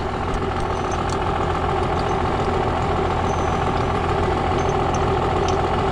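Farm tractor engine running steadily, a little louder after the first moment.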